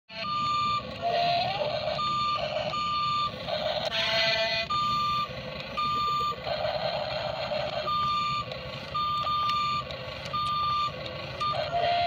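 Electronic warning beeps from a toy RC excavator's sound effects, short single-pitch beeps repeating about once a second, with a buzzy horn-like tone about four seconds in.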